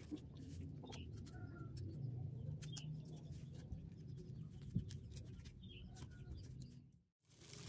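Birds calling in the background over a low steady rumble, with scattered light clicks and taps from handling the cardboard and the glue bottle. The sound drops out briefly near the end.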